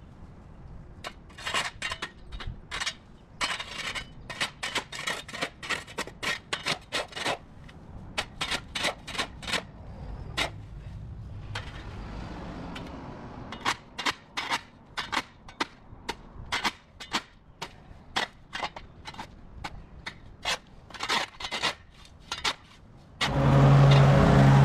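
Shovel blade chopping and scraping at grass clumps and hard dirt: quick sharp strikes, several a second, with a pause about halfway through. Near the end an engine comes in, running loudly.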